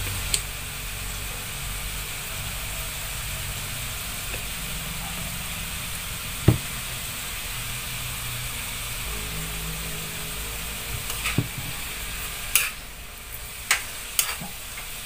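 Bitter melon and carrots sizzling as they stir-fry in a pan, with a steady hiss. A metal ladle knocks and scrapes against the pan now and then, more often near the end.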